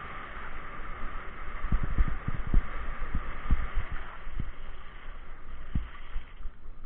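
Mountain bike rolling fast over a gravel track: a steady hiss of tyres on loose gravel, with many short low thumps as the bike jolts over bumps. The tyre hiss fades about five seconds in as the bike slows for the turn.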